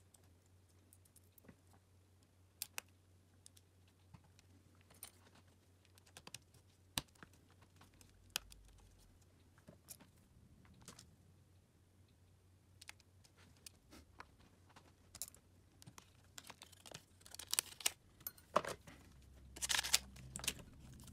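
Small clicks and taps of hands and tools working on a smartphone during a screen replacement, scattered and irregular, with two short bursts of scraping and rustling near the end.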